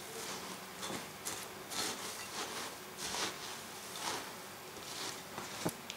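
Spatula stirring milk- and egg-soaked stale bread cubes in a glass bowl: soft, irregular strokes about one or two a second, with a sharper tap near the end.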